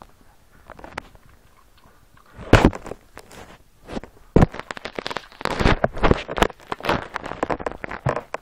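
A Yorkshire Terrier and a Kleinspitz x Jack Russell play-fighting: irregular scuffling with quick clicks and snaps. It starts suddenly about two and a half seconds in and is busiest in the second half.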